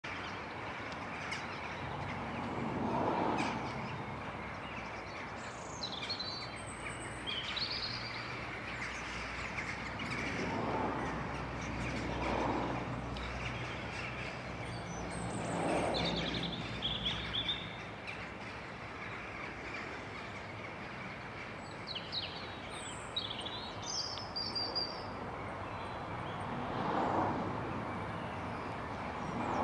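A flock of birds chirping and calling, many short high calls scattered throughout, over steady outdoor background noise. Several broader swells of rushing noise rise and fall, and a low rumble fades out a little past halfway.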